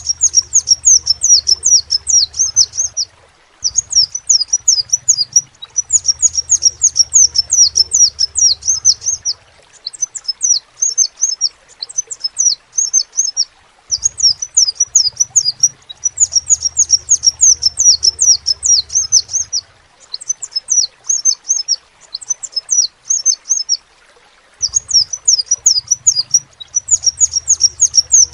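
Crimson sunbird (sepah raja) singing in fast, high-pitched twittering phrases of one to a few seconds each, broken by short pauses, about ten phrases in all.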